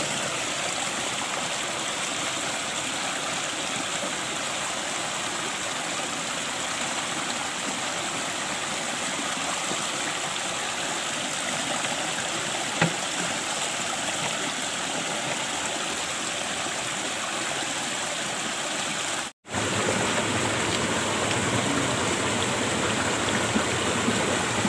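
Steady rushing and gurgling of water flowing in a small stream. The sound cuts out for a moment near the end and comes back slightly louder.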